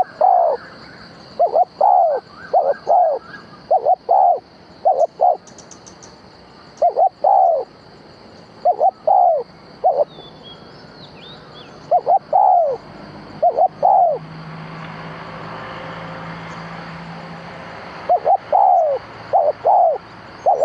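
A decoy dove cooing to lure wild doves to a trap. Short coos come in groups of two or three, every second or two, with a longer pause partway through.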